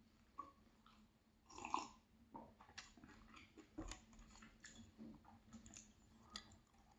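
Faint close-up chewing of a crispy-edged pastry: soft crunches and small mouth clicks. The loudest crunch comes a little under two seconds in.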